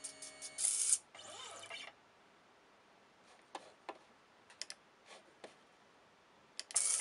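Pen plotter running: stepper motors with a steady whine and rapid, evenly spaced clicks as the pen servo steps, stopping about a second in after a short whirring move. A few separate clicks follow in the quiet, and the rhythmic clicking and whine start again near the end.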